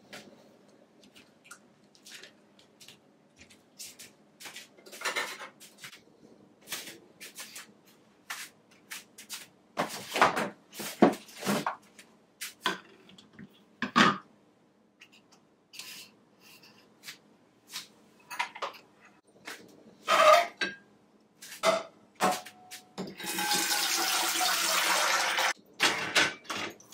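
Kitchen handling sounds: a string of separate clicks, clinks and knocks of cups, glassware and utensils, then water running steadily for about three seconds near the end.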